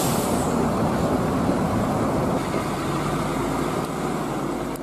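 Large diesel coach engines running as buses move off and drive past, a steady low rumble with road noise. A short hiss comes right at the start.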